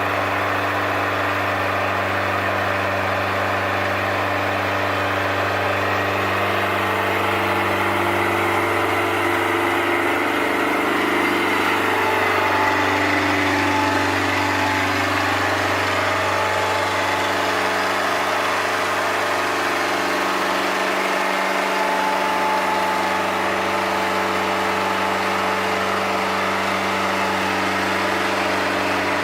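Bobcat 751C skid steer's diesel engine running at a steady speed. Through the middle its pitch and load shift unevenly before it settles back to a steady run.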